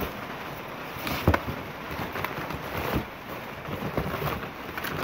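Gloved hands rummaging through a cardboard box packed with books and folders: a continuous rustle of paper and cardboard, with a few knocks as items shift and are lifted out.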